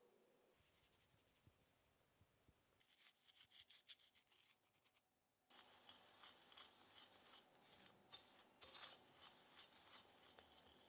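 A wire whisk stirring dry flour mixture in a ceramic bowl, making a faint, quick, scratchy rubbing. It comes in two spells, a short one about three seconds in and a steady run from about halfway on.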